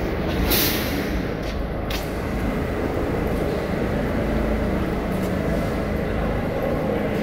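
R32 subway train moving along the platform: a steady rumble of wheels and running gear, with a short burst of hissing air about half a second in.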